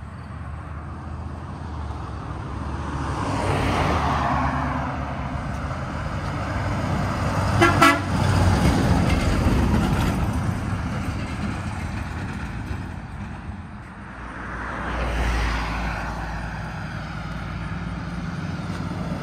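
Semi truck with a grain hopper trailer driving past, its diesel engine noise swelling as it nears, with a brief horn toot about eight seconds in. The traffic noise swells again near the end.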